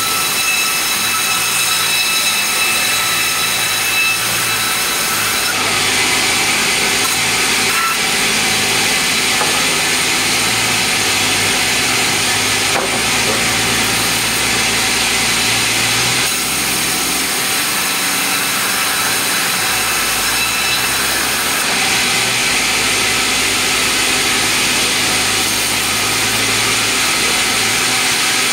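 Sawmill saw running and cutting meranti boards: a steady whine over the noise of the blade in the wood, at an even loudness throughout.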